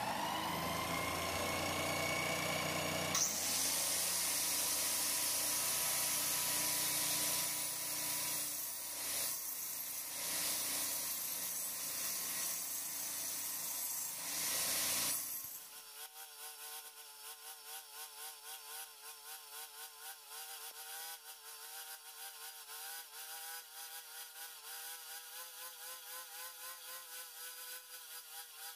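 A drill-driven homemade wood lathe spins up with a rising whine. About three seconds in, an angle grinder fitted with a toothed wood-cutting blade bites into the spinning square pine blank with a loud, harsh cutting noise. About fifteen seconds in, this drops to a quieter, pulsing buzz as the blade cuts into the now-round wood.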